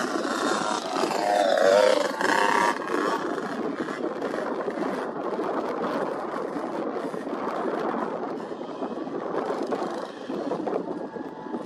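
Motocross dirt bike engine revving, its pitch falling sharply between about half a second and two seconds in, with a short burst of revs just after. Then a steady, rough noise with no clear engine note.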